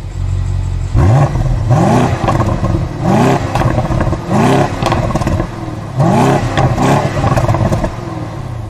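Car engine running at idle, then revved in about six short, sharp blips that start about a second in, some coming in pairs.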